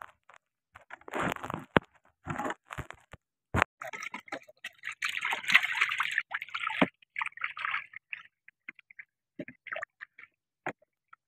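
Water sloshing and splashing around a small wooden boat as a hook line is hauled in and an eel is pulled from the water, with a longer burst of splashing about five seconds in. A few sharp knocks sound earlier.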